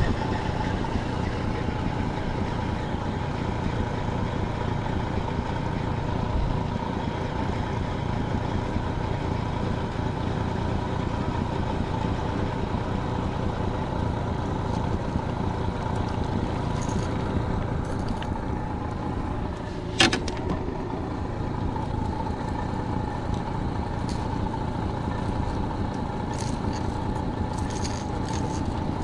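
Honda 30 hp four-stroke outboard motor running steadily at low trolling speed, with water churning at the stern. A single sharp click about two-thirds of the way through, and a few lighter clicks near the end.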